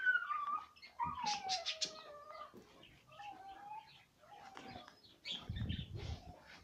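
A pet's drawn-out, pitched cries, meow- or whine-like: the longest starts about a second in and falls in pitch over about a second and a half, with shorter ones after it. A low rumble near the end.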